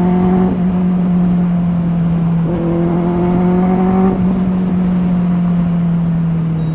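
Benelli 600i's inline-four engine running through dual SC Project slip-on exhausts while riding, a loud steady note whose pitch rises slightly twice and then eases down over the last couple of seconds as the throttle is rolled off.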